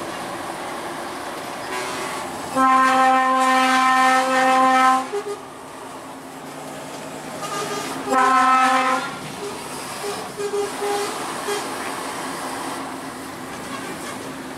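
Truck air horn sounding twice over the steady noise of a moving lorry cab: one long blast of about two and a half seconds, then a shorter blast of about a second.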